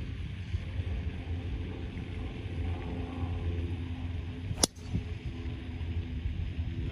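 Golf club striking a ball off the tee: one sharp crack about 4.6 s in, over steady wind rumble on the microphone.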